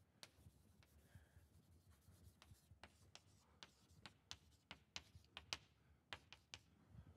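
Chalk writing on a blackboard: a string of quiet, irregular taps and short scrapes as letters and symbols are written, coming faster in the second half.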